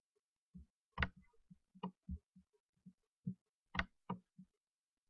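Computer mouse clicking, four faint sharp clicks spread over a few seconds, with soft low knocks in between.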